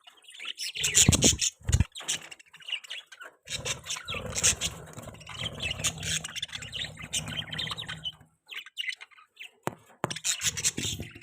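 Budgerigars chirping and chattering in rapid, short chirps, with a low rumble underneath for several seconds in the middle.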